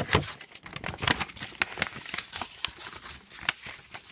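Paper documentation from the throttle body's box being handled and unfolded: irregular rustling and crinkling with sharp ticks.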